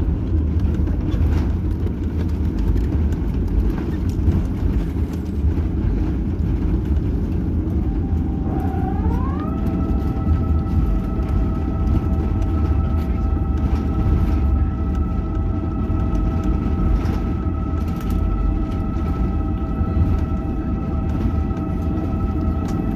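Airbus A350-900 cabin rumble as the airliner rolls on the ground after landing. About a third of the way in, a whine of several tones rises, then holds steady.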